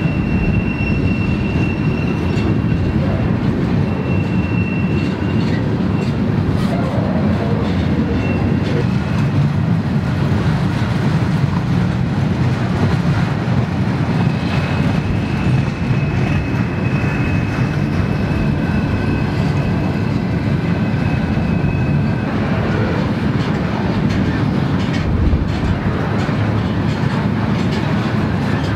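Freight train cars rolling slowly through a tight curve, the wheels rumbling and clacking over the rail. High-pitched flange squeal comes and goes in the first few seconds, then sounds steadily for about eight seconds from the middle on.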